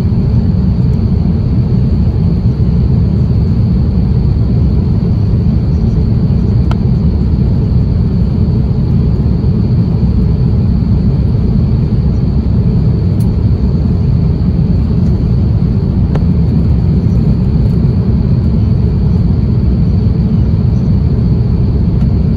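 Steady cabin noise inside an Airbus A350-1000 in flight: a deep, even rumble of airflow and the Rolls-Royce Trent XWB engines, with a faint steady high whine above it.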